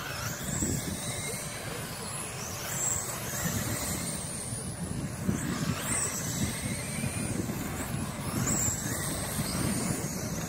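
Radio-controlled sprint cars racing on a dirt oval. High motor whines rise and fall again and again as the cars pass, over a steady low rumble.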